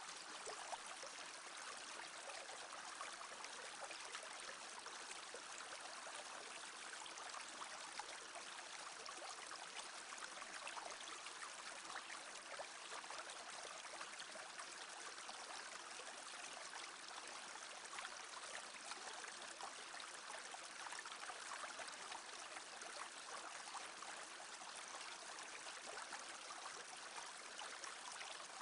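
Small brook babbling steadily, an even rush of water with fine flickering detail.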